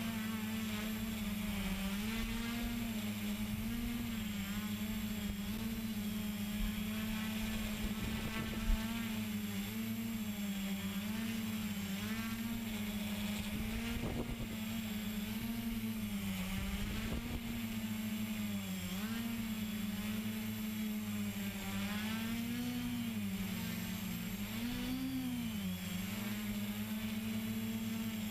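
Turnigy HAL quadcopter's electric motors and propellers buzzing in a hover, the pitch of the hum wavering up and down as the motors speed up and slow down, with two larger swings in the last few seconds.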